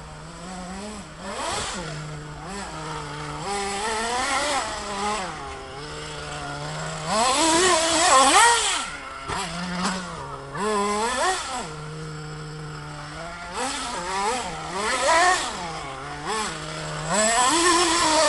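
Radio-controlled model buggy's small engine revving up and down over and over as it is driven, with the highest, loudest revs about halfway through and again near the end.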